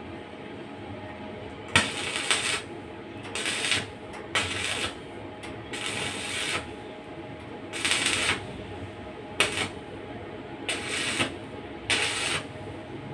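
Electric stick welder striking short tack welds on steel: about eight separate crackling bursts of arc hiss, each under a second, some starting with a sharp click.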